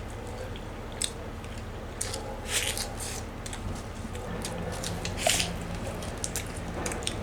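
Close-up eating sounds of a man biting into and chewing wood-fire barbecued chicken: scattered short mouth clicks and smacks, with a couple of louder bursts about two and a half and five seconds in.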